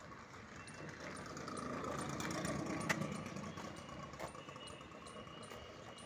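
An engine running, swelling over about two seconds and then fading away, with a steady thin whine through it. A single sharp click about three seconds in.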